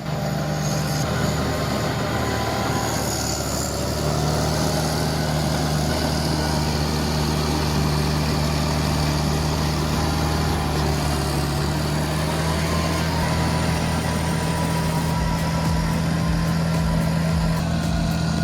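Engine of a heavy earth-moving machine running steadily, a constant low hum that gets slightly louder about four seconds in.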